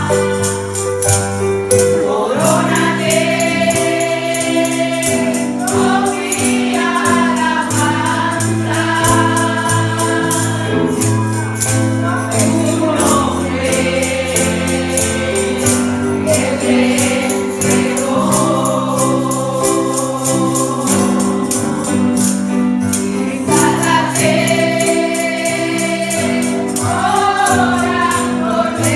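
Live gospel praise music: voices singing over held keyboard or bass notes, with a steady percussion beat running underneath.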